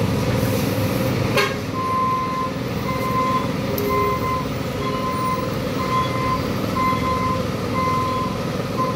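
Steady rumble of vehicle traffic with a short electronic beep repeating about once a second, starting near two seconds in. A single sharp click sounds just before the beeping begins.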